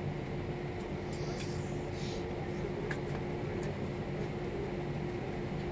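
Steady hum inside an Airbus A320 cabin after landing, with one constant low tone, from the aircraft's engines or air-conditioning system. Faint rustles come about a second and a half and two seconds in.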